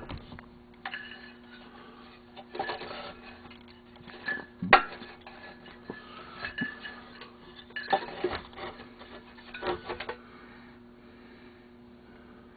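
Metal engine parts clinking and clattering as they are handled and worked, in several short bursts, with one sharp knock nearly five seconds in. A steady low hum runs underneath.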